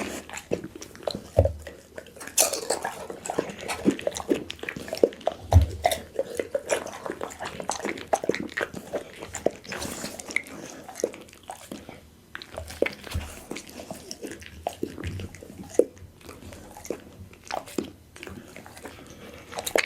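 A pit bull chewing and biting raw food: a steady run of irregular crunches and clicks from its jaws, with a few low thumps.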